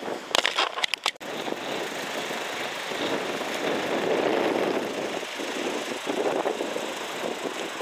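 Bulk tanker lorry driving across a road bridge, its engine and tyre noise swelling to a peak about four seconds in and then easing off. A few sharp knocks come just before it, in the first second.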